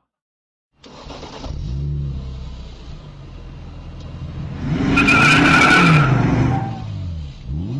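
Car engine revving up and down, with a loud, high tyre squeal lasting about a second, some five seconds in.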